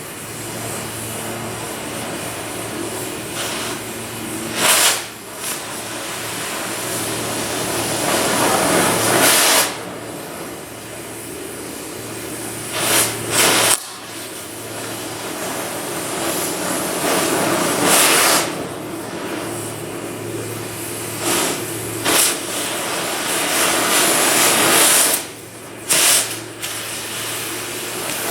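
Airco oxy-fuel cutting torch burning through steel channel: a steady hiss with several short louder whooshes, over a low steady hum.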